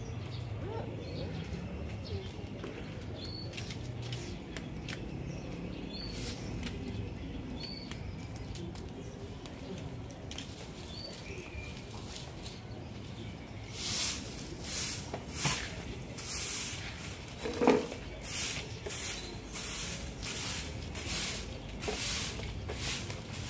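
Fibre broom sweeping brick paving in quick scratchy strokes, about two a second, starting about halfway through. Before that only a low background with a few short high chirps.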